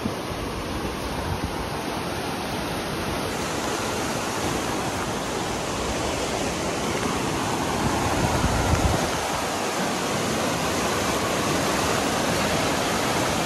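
The Provo River rushing in raging flow: a steady noise of fast-moving water.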